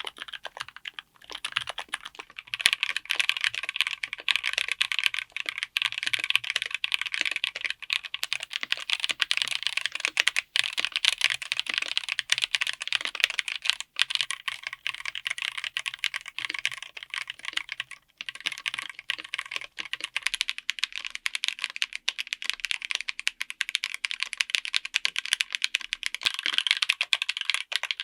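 Continuous fast typing on a mechanical keyboard fitted with linear switches and Cherry profile keycaps: a dense run of key clacks with a couple of brief pauses.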